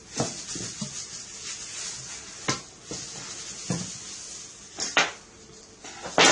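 Scattered knocks and clinks of dishes and a baking tray being handled as vegetables are set in place, about six separate knocks, the loudest just before the end.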